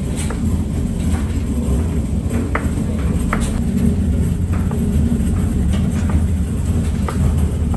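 Kitchen knife chopping peeled potatoes on a plastic cutting board: a handful of sharp, irregular chops over a loud, steady low rumble of kitchen machinery.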